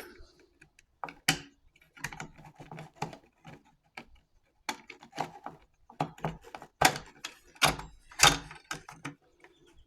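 Irregular clicks and knocks of hands working a compact cordless band saw as a new blade is fitted onto its wheels and through its guide bearings, with three louder knocks in the second half.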